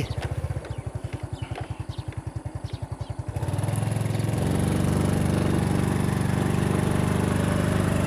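Small motorcycle engine puttering at low revs, then picking up about three seconds in and running steadily as the bike rides along.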